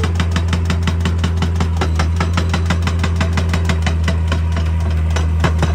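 Excavator's diesel engine running steadily under a rapid, even train of sharp knocks, about seven a second, from a hydraulic breaker hammering rock.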